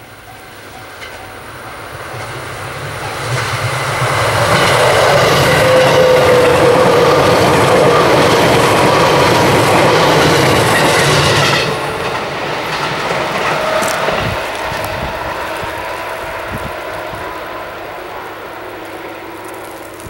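A JR 211 series electric multiple-unit train passing close by on the rails. It grows louder as it approaches and is loudest for about seven seconds with wheels clattering on the track. The sound drops off sharply as the last car goes by and fades away.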